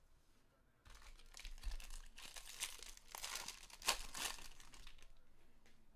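A Bowman Draft trading-card pack's wrapper being torn open and crinkled by hand. It is a run of crinkling and tearing that starts about a second in, with its sharpest crackle a little before the end.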